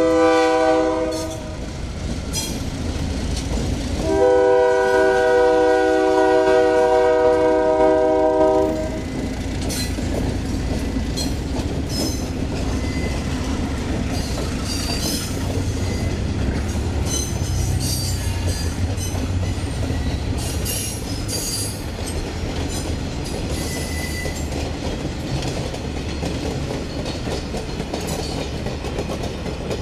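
Diesel locomotive air horn sounding a short blast and then a long chord blast of about four and a half seconds. It is followed by a passing freight train's steady low engine rumble and wheels clicking over rail joints, with faint wheel squeal now and then.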